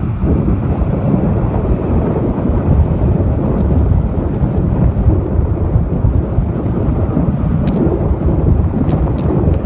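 Wind buffeting the microphone and road noise from a moving car: a loud, steady low rumble, with a few faint clicks near the end.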